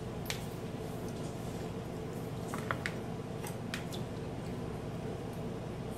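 A metal spoon turning marinated raw chicken pieces in a plastic bowl: soft wet squishing with a few scattered light clicks of the spoon against the bowl, over a steady low hum.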